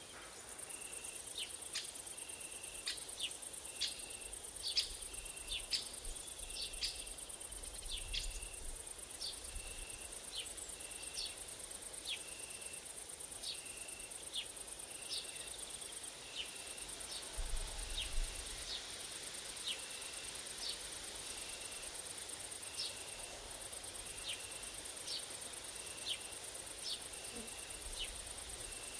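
Summer woodland insect chorus: a steady, very high grasshopper and cricket trill, with a cricket chirping evenly a little faster than once a second. Short sharp bird calls come in irregularly throughout.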